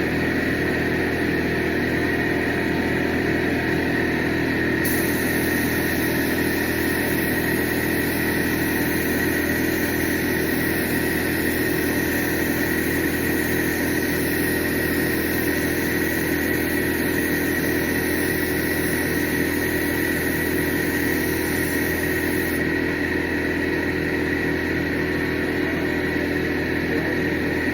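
A machine running steadily with a constant hum and whine, with no change in speed, cutting off abruptly at the end.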